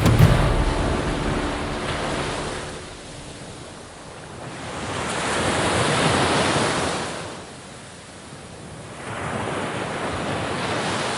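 Sea waves breaking and washing ashore in slow surges, the surf swelling and ebbing, with one swell peaking about halfway through.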